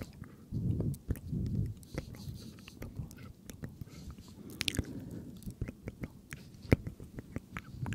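Close-miked ASMR mouth sounds: many sharp, wet clicks and smacks at an irregular pace, with a few short, low, muffled swells.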